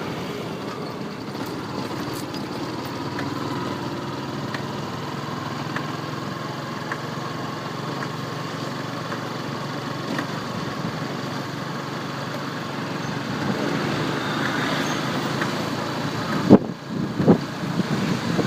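Yamaha R15 V2's 150 cc single-cylinder engine running steadily, with a light click about once a second from the drive chain and sprocket. Near the end comes one loud knock, followed by a few more sharp sounds.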